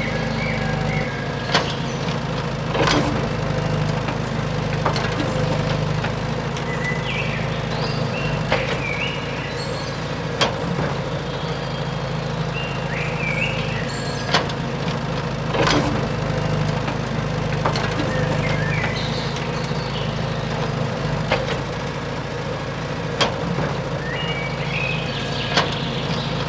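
A machine's motor runs with a steady drone, broken by sharp knocks every second or two, with faint chirps above.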